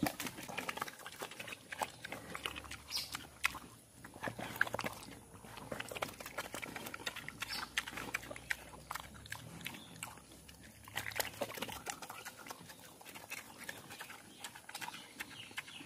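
A domestic pig eating wet feed from a metal bowl: a continuous run of irregular short smacks and slurps as it chomps and snuffles.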